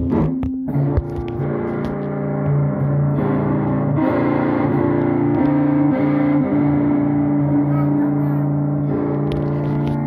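Music: long held chords that change every second or two.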